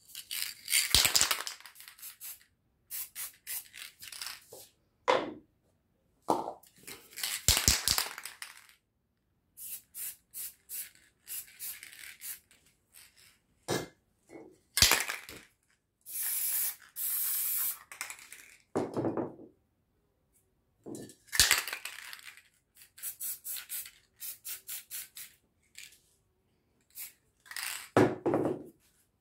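Aerosol spray paint cans hissing in repeated bursts, most short and one lasting about two seconds, with clicks, knocks and runs of quick clicks between them as the cans are handled.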